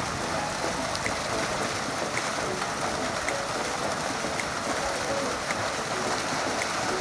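Dense, steady splashing and churning of a mass of fish thrashing at the water surface, crowded together in a hauled-up harvest net in a fish cage.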